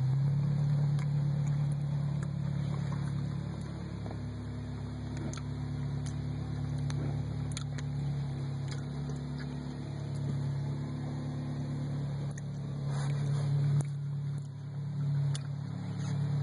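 A steady low motor hum with scattered light clicks, its pitch shifting slightly near the end.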